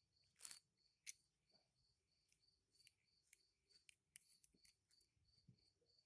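Faint, sharp clicks of a small rotary magazine with a numbered dial being turned and worked by hand, the two loudest about half a second and a second in. A faint high chirp repeats evenly about twice a second throughout.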